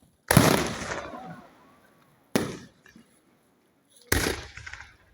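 Three aerial fireworks shells bursting about two seconds apart, each a sharp bang that fades with an echoing tail. The first is the loudest and longest.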